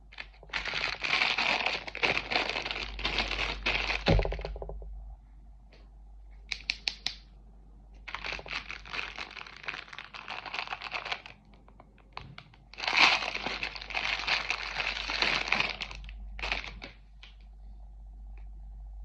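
Packaging crinkling and tearing as a toy is unwrapped, in three bouts of a few seconds each, with sharp cracks and clicks between them.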